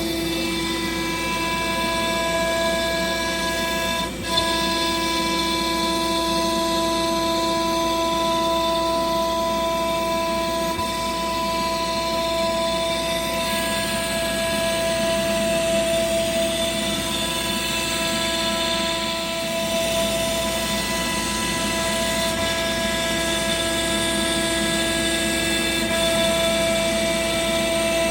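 Sienci Labs AltMill CNC machine running a job, a steady whine made of several tones, some of which drop out and come back every few seconds as the machine moves. A short knock about four seconds in.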